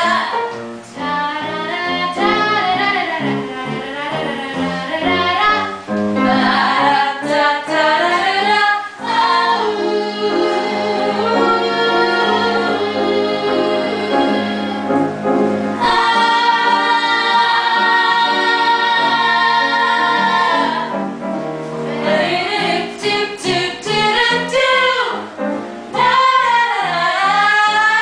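Three women singing a song together on stage, in sung phrases with long held notes.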